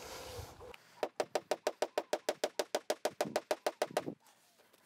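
Hammer knocking felt tacks into roofing felt on a wooden baseboard: a fast, even run of about two dozen sharp knocks, some eight a second, that stops abruptly.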